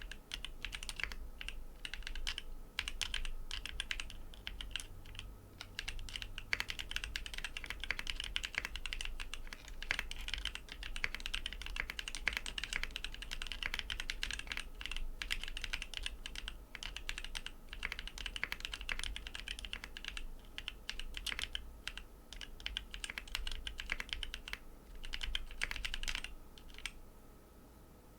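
Typing on a Bakeneko 60 mechanical keyboard with an FR4 plate, lubed Tecsee Coral tactile switches and DCS-profile double-shot ABS keycaps: a rapid run of keystrokes with brief pauses, stopping shortly before the end.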